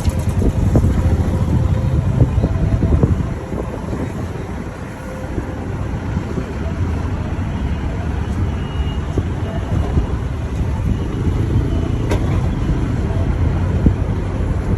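Low rumble of a moving vehicle's engine and road noise in traffic, heard from on board, with a single sharp click about twelve seconds in.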